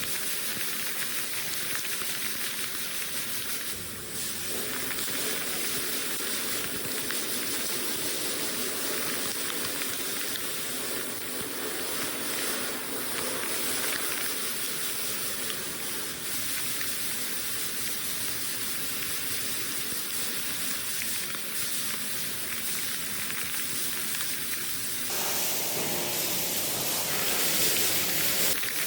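Steady hissing noise, such as a workshop tool working on metal makes; near the end it shifts and grows a little louder.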